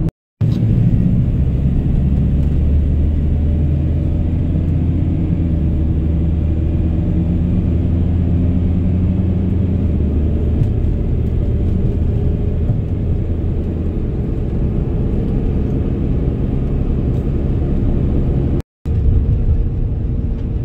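Inside a van's cab at road speed: a steady low engine drone with road and tyre rumble. The sound cuts out twice for a split second, once just after the start and once near the end.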